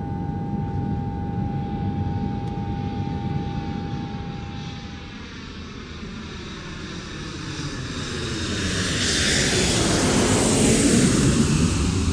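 Passenger aircraft engines heard from inside the cabin, spooling up to takeoff power and growing steadily louder over the second half. A steady tone cuts out about five seconds in.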